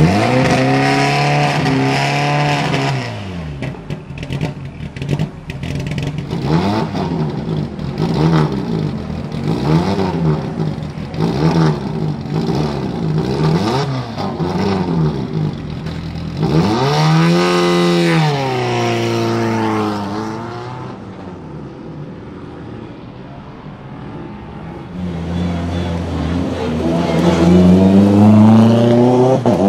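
Time attack race car with a tuned turbocharged four-cylinder and sequential gearbox, running on track. The engine revs up and down in a quick run of short sweeps with popping, makes one big rise and fall of pitch, drops quieter for a few seconds, then climbs hard again near the end.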